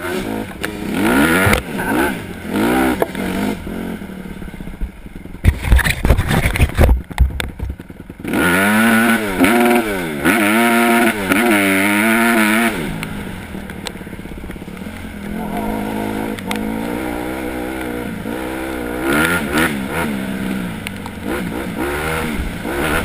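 Dirt bike engine revving up and down over and over as it is ridden along a rough trail, with a run of heavy knocks and clatter about six to eight seconds in, followed by hard revving.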